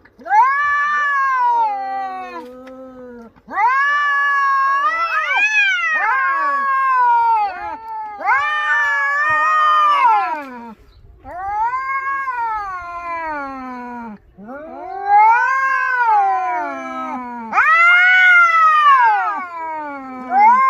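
Cats caterwauling in a fight: long, drawn-out yowls, about seven of them one after another, each rising and then falling in pitch, with short breaks between.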